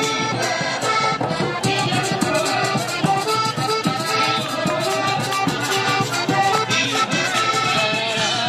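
Accordion-led Panamanian música típica with a steady percussion beat.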